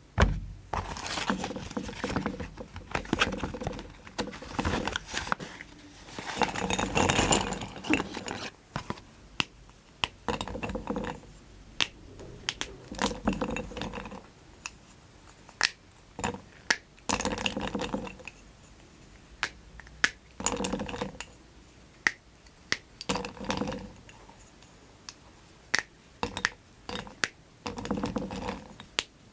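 Colourful chalk being crushed into powder: repeated crunching and crumbling every couple of seconds, with sharp crackling clicks between the crushes.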